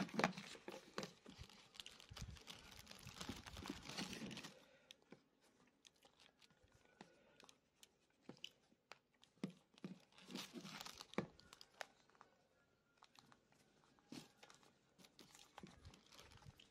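Faint handling sounds of a replacement leatherette ear pad being stretched and worked onto the plastic ear cup of a Sony MDR-XB950B1 headphone: soft rustling and crinkling with scattered light clicks and creaks. The rustling is densest at the start and again about ten seconds in.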